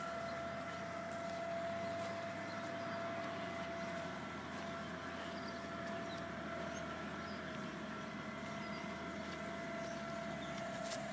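Steady mechanical hum from dock operations carrying across the river: a constant mid-pitched whine with fainter higher tones above it, over a low drone.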